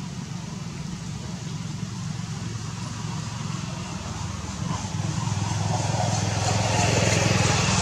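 An engine running steadily, growing louder from about five seconds in.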